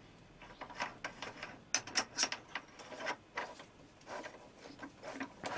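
Irregular small metallic clicks and taps of a collet, collet nut and twist drill being handled and fitted into a machine spindle, with a quick cluster of sharper clicks about two seconds in.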